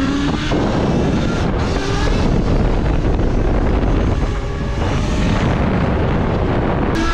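Wind rushing over the microphone of a riding electric dirt bike, a steady low rumble. Beneath it the bike's Zero ZF75-7 electric motor gives a faint whine that rises and falls with speed.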